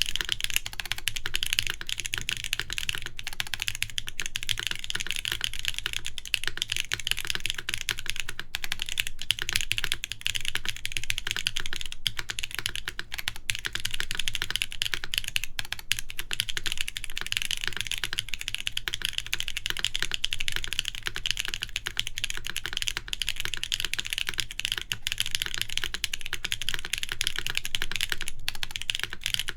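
Continuous fast typing on a Nayeon TKL mechanical keyboard with KTT Waverider linear switches in a full aluminium plate, under GMK Shoko R2 keycaps: a dense stream of key clacks with no pauses.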